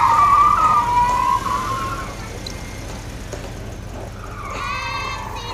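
A young child's high-pitched voice held in a long drawn-out sound that slides slightly down in pitch and fades about two seconds in; a similar sound starts again near the end.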